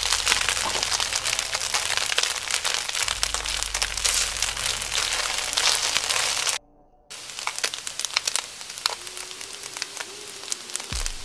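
Fresh flat rice noodles frying in smoking-hot oil in a wok: a dense, steady sizzle full of sharp crackling pops as the noodles sear and char. It cuts out briefly a little past halfway and then carries on quieter.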